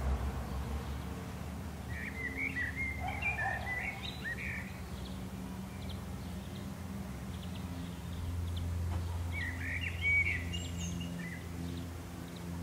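Songbirds chirping in two short bouts, about two seconds in and again near ten seconds, over a steady low rumble of distant road traffic in a rural garden.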